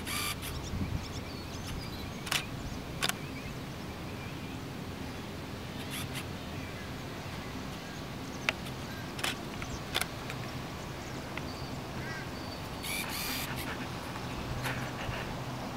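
Outdoor ambience: a steady low hum with scattered sharp clicks, and a short noisy burst about 13 seconds in.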